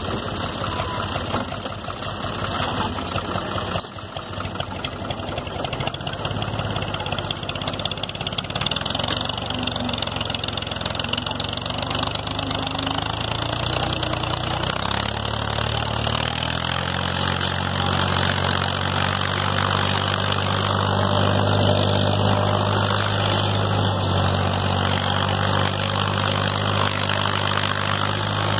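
Fiat 450 / U445 tractor's diesel engine running under load while pulling a plough through grassy ground. Around the middle its speed picks up over a few seconds, then it holds steady and a little louder.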